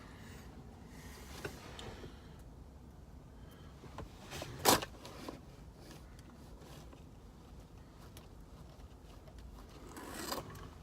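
Handling noise from small shifter parts being fitted: a few light clicks and rustling, with one sharp, loud click about halfway through.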